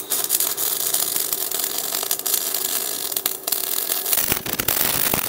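MIG welding arc on thick steel plate: the arc strikes suddenly and crackles and sizzles steadily as a bead is run, with a brief break about three and a half seconds in.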